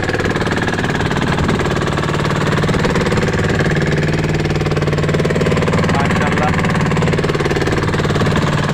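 Fishing boat's engine running steadily, a rapid even knocking drone.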